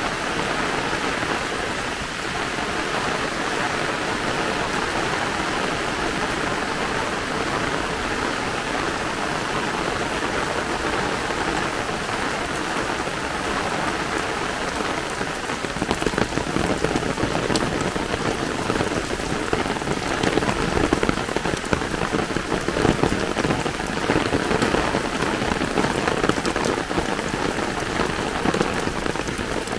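Heavy downpour falling steadily as an even hiss of rain. About halfway through it turns louder and lower, with a heavier, uneven spatter of drops.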